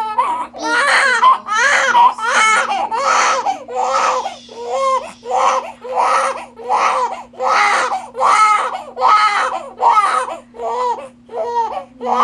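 Newborn baby crying: short wailing cries repeating in a steady rhythm, about three every two seconds.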